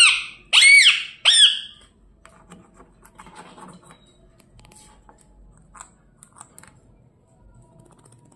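Pet parrot squawking: three short, shrill calls within the first two seconds, each sweeping up and then down in pitch, followed by faint scattered clicks and rustles.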